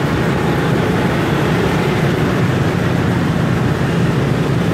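Motor scooter riding through dense motorbike traffic: a steady low engine hum over road and wind noise, holding an even level throughout.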